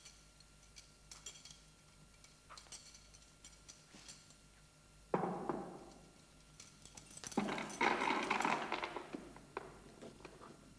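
Light scattered clicks and shuffling, a sudden heavy thump about five seconds in, then a couple of seconds of scuffling and clattering as a man with bound hands is pushed down onto a wooden chair.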